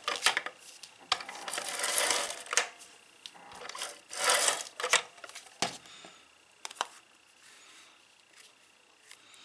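ATG adhesive tape gun drawn across the back of a cardstock photo mat: two rasping runs of tape, each about a second long, followed by a few light clicks and taps as the mat is set down and pressed.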